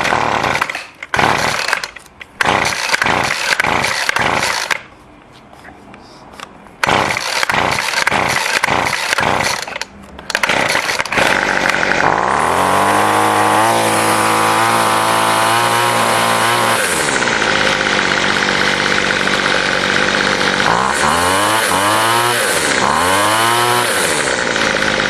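Two-stroke string trimmer (weed eater) engine being started, sputtering and cutting out several times before it catches at about 12 seconds. It then runs steadily and is revved up and down twice near the end. The hard start is put down to the tank being nearly out of gas.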